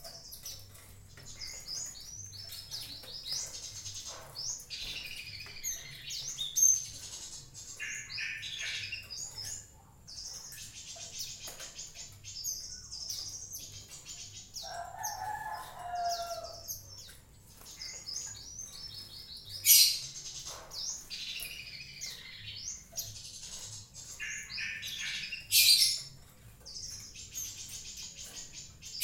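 Small cage birds bathing in water cups: short bursts of wing fluttering and splashing, with rapid high chirping throughout. There are two louder splashing bursts in the second half and one lower call near the middle.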